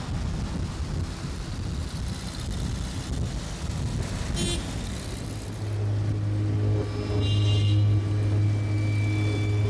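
Street traffic with cars driving past; about halfway through, a steady low engine hum sets in and becomes the loudest sound.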